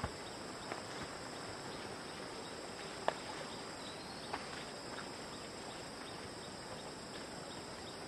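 Insects calling with a steady high-pitched drone, with a few scattered faint clicks and knocks, the sharpest about three seconds in.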